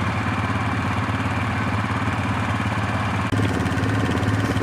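Four-wheeler (ATV) engine running steadily with an even pulsing note, briefly dipping about three seconds in and then coming back slightly louder.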